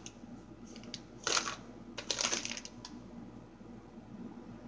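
Small hair accessories rattling and clicking as a hand rummages through a plastic basket, with two short clatters about a second and two seconds in.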